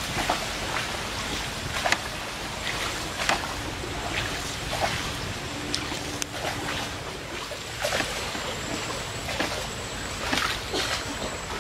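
Wooden canoe paddle strokes splashing and dripping in the water, about one every second and a half, over the wash of the hull moving through the channel, with wind on the microphone.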